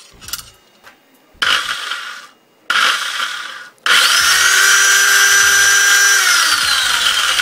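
Makita circular saw's brushed motor, freshly fitted with new carbon brushes, switched on in two short bursts and then held on for about two seconds with a steady whine, after which it is released and spins down with a falling whine. It runs well, with no cutting out: the worn-brush fault is cured.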